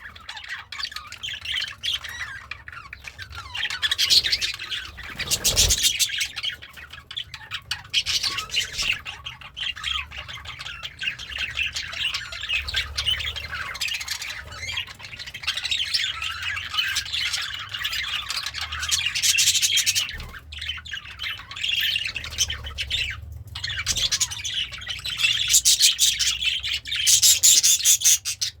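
Pet budgerigar warbling and chattering without a break, a quick jumble of chirps and squawky notes, louder in several stretches, loudest near the end. A low thump about five and a half seconds in.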